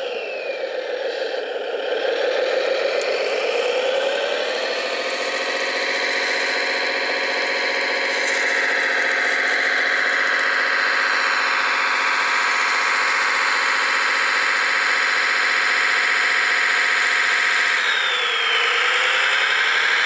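Radio-controlled Liebherr 741 crawler dozer model running, its drive whining. The pitch sags and recovers in the first few seconds, holds steady, then dips and rises again near the end as the blade pushes into deep snow.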